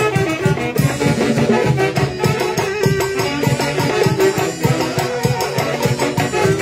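Lively Latin American dance music with drums and plucked strings, keeping a steady beat.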